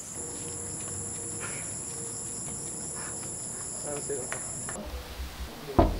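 Crickets chirping in a steady high trill that cuts off abruptly about three-quarters of the way in. Near the end come two loud knocks on a wooden door, the loudest sounds here.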